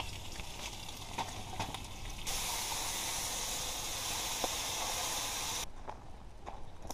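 Campfire burning, crackling with scattered sharp pops. For a few seconds in the middle a steady hiss comes in, then stops abruptly.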